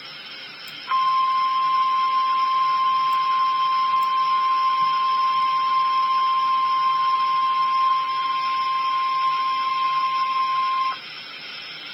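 Emergency Alert System attention tone for a tornado warning: a single steady tone that starts about a second in, holds for about ten seconds and cuts off sharply, over constant radio hiss.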